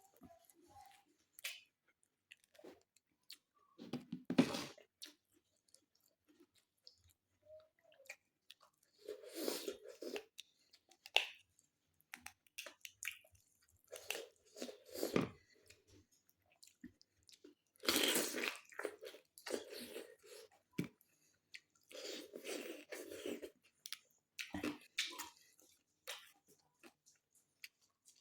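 A person chewing and crunching food, in irregular bursts of a second or two separated by short pauses.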